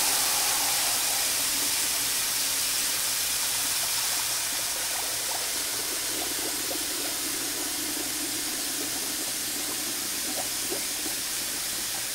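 Steady stream of water from a kitchen faucet pouring into a metal pressure cooker packed with jars, splashing onto the perforated rack and into the pooling water. It cuts off suddenly at the very end as the tap is shut.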